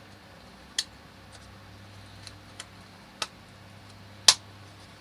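Sharp clicks and taps of the Stihl TS400's recoil starter parts, the coiled spring and the plastic housing, being handled and fitted together. There are a few separate clicks with fainter ticks between them, and the loudest comes about four seconds in.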